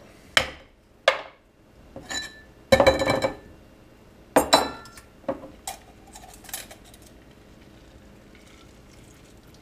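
Wooden mallet knocking sharply twice on a Boston shaker to break its seal. This is followed by loud ringing clinks and rattles of glass and metal as the shaker comes apart and is handled, with smaller clicks tapering off after about seven seconds.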